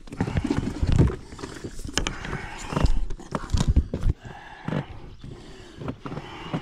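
Irregular knocks and low thumps of fishing gear and body movement against an inflatable boat's hull while a carp is played close to the boat.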